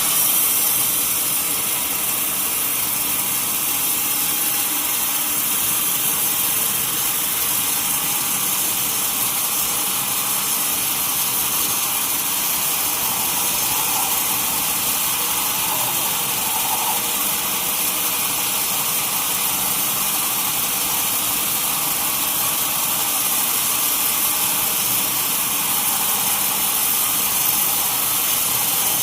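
Sawmill saw running with a steady high-pitched hiss that holds unchanged throughout.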